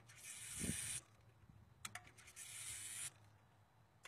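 A 5.0L Mustang's EFI fuel system primes in short spurts each time the TFI ignition module is twisted. There are two bursts of hissing, each about a second long, as the fuel pump runs and fuel rushes through the pressure regulator, and a click comes just before the second. The intermittent triggering is what the mechanic takes for a bad TFI ignition module.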